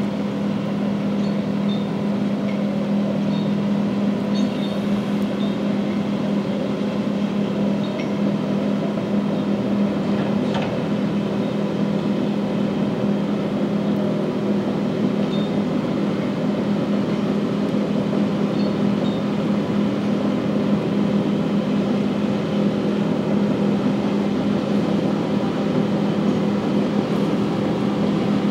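Diesel engine of a Madill 123 grapple yarder running steadily as the machine walks on its tracks: an even, low drone that does not change.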